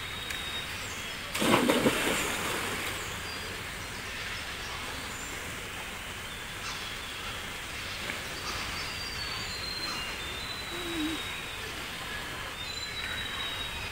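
Outdoor ambience: a steady hiss of background noise with thin high bird calls, broken by a loud, sudden burst of noise about a second and a half in.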